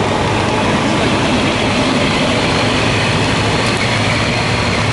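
Semi truck's diesel engine running steadily as the truck ploughs through deep floodwater, over a constant hiss of rain and churning water.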